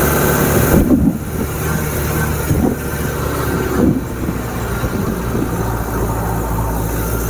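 Engine of an open-topped off-road tour jeep running steadily as it drives, heard from inside the vehicle along with wind and road noise.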